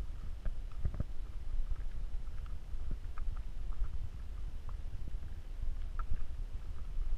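Wind buffeting a GoPro Hero3 Black's microphone, a gusty low rumble that swells and dips, with a few faint scattered ticks.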